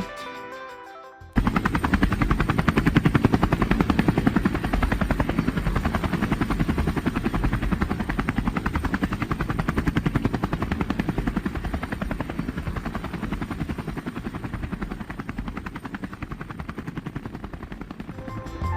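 Helicopter rotor chop, a fast steady beating that starts abruptly about a second in and eases slightly toward the end.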